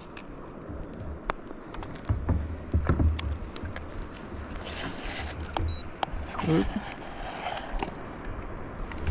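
Handling noises on a kayak: scattered small clicks and knocks of a metal hook and fishing gear being worked by hand, over an uneven low rumble.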